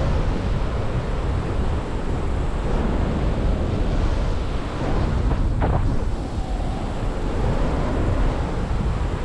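Wind rushing over the camera microphone of a paraglider in flight, a steady low rumbling buffet from the airflow.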